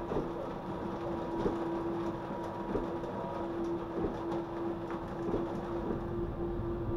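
Steady electrical hum of a tram standing at a stop, over a low rushing noise, with faint irregular ticks.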